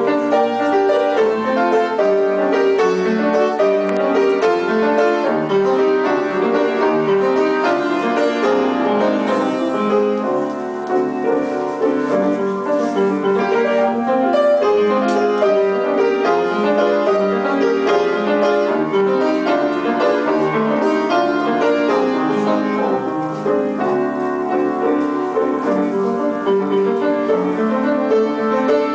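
Piano music, a steady run of notes with a brief softer moment about ten seconds in.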